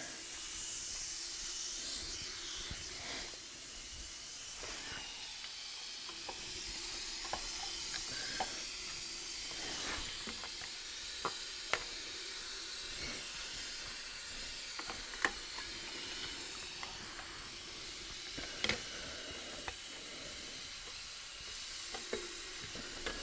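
Screwdriver prying at the bendable tabs that hold the brake line to the rear axle housing: scattered light metallic clicks and taps over a steady background hiss.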